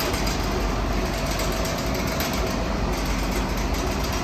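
Water well drilling rig's engine running steadily with a low rumble and a faint steady whine.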